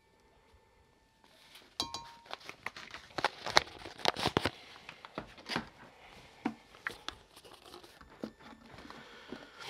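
Kitchen utensils handled on a wooden tabletop: a quick run of clicks, taps and clatters with crinkly rustling between them, starting about a second in and busiest in the middle.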